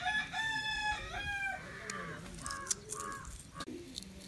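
A rooster crows once, a long call of several linked notes in the first second and a half, followed by a few shorter calls. A sharp click sounds past the middle.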